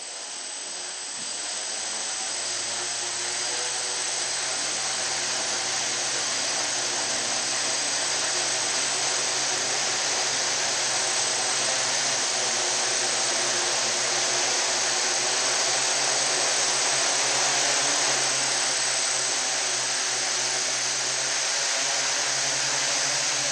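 Quadcopter's brushless motors and propellers spinning on the ground, a steady whirring with a low hum that builds over the first few seconds. One motor or its speed controller is faulty: it only starts once throttle is added and cuts out after a while.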